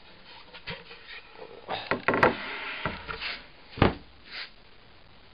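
A plywood panel being handled and laid down on a wooden workbench: several sharp knocks and short scrapes of wood on wood.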